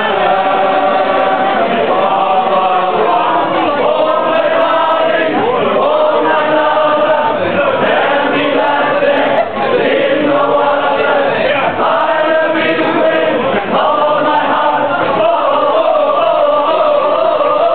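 A roomful of people singing together in chorus, without a break.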